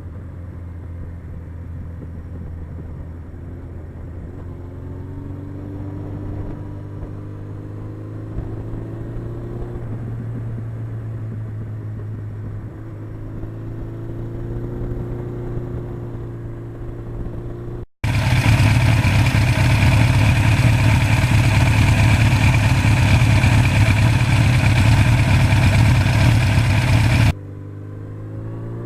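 1982 Suzuki GS1100E's air-cooled inline-four engine running under way, its pitch rising each time it pulls through a gear. About two-thirds of the way in the sound cuts abruptly to a much louder, harsher engine note for about nine seconds, then drops back to the quieter running note, which climbs again near the end.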